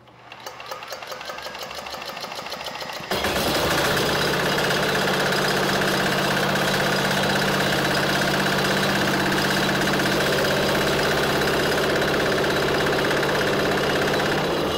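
A cordless drill spins a small single-cylinder air-cooled diesel engine over by its flywheel, the drill's whine rising. About three seconds in, the engine fires on its first start and settles into a steady, rhythmic run.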